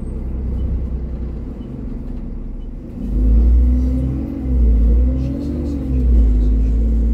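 Alexander Dennis Enviro 400 double-decker bus engine heard from on board. It runs low at first, then about three seconds in pulls away with a deep rumble, its note rising and dipping a few times as it accelerates.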